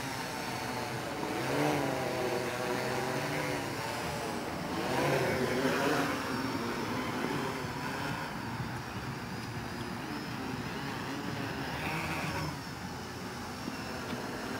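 MikroKopter quadcopter's brushless electric motors and propellers buzzing in flight, the pitch wavering up and down as the motor speeds are constantly adjusted, loudest about five seconds in.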